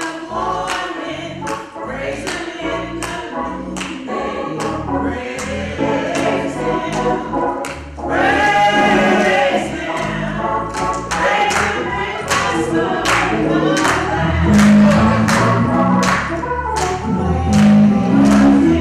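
Gospel singing with a choir-like sound: a woman sings lead into a microphone, with hand-clapping keeping a steady beat about twice a second. The singing grows louder about eight seconds in.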